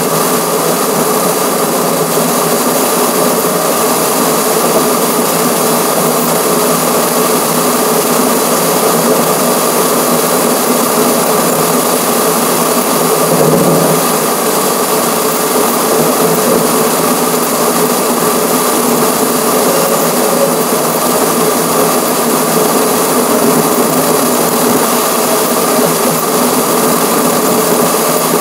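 Steady road and wind noise picked up by a camera on a car's front grille at highway speed, an even, unbroken drone that swells slightly about halfway through.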